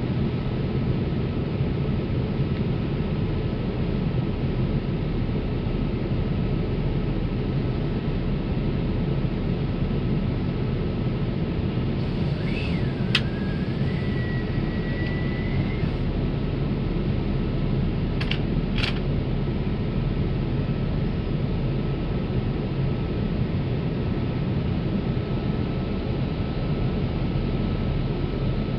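Steady cabin noise of a Boeing 787 Dreamliner in cruise: an even rushing noise with a low rumble and a faint steady tone. A few faint clicks and a short, faint whistling tone come near the middle.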